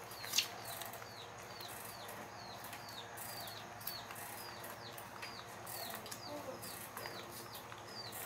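A bird repeating a short, high call that falls in pitch, evenly about twice a second. A single sharp click sounds about half a second in.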